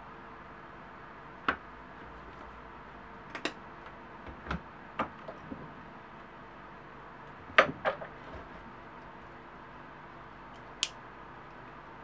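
A handful of sharp clicks and knocks as a metal rotary leather hole punch is worked on a belt and set down on a cutting mat, over a steady faint hum.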